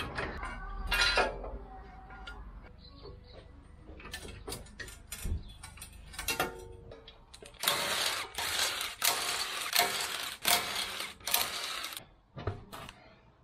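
Cordless impact wrench spinning off the wheel nuts in a string of loud short bursts in the second half, after scattered metal clicks and knocks.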